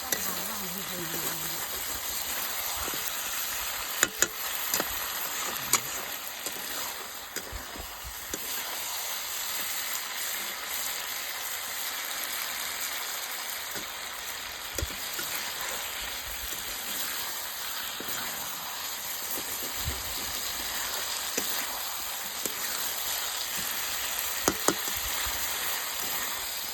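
Chicken frying in hot oil, a steady sizzle, with a few sharp clicks, including a pair about four seconds in and another near the end.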